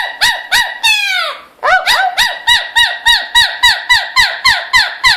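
Pet parrot calling in a fast, even run of short arching calls, about four a second, with a brief break just over a second in. The bird is excited and vocal after a bath in the rain.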